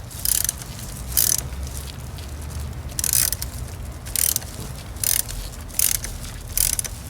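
Seven short rasping bursts of ratchet-like clicking, roughly a second apart, from hand-tool work on the car's headlight assembly.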